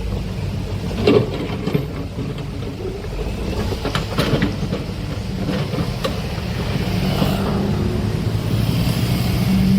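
Heavy diesel construction machinery running, a steady low engine rumble with a few short metal clanks, about a second in and again around four seconds. The engine note grows louder toward the end, as under load.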